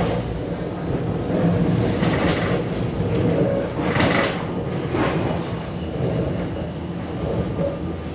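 Tram running along its tracks: a steady low rumble of wheels on rails, with a few short hissing swells.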